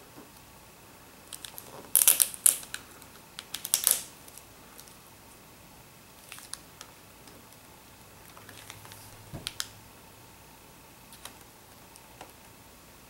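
Adhesive tape on a laptop screen's video cable being picked and peeled with tweezers: sharp small clicks and crinkles, loudest in a cluster about two to four seconds in, then scattered fainter ticks.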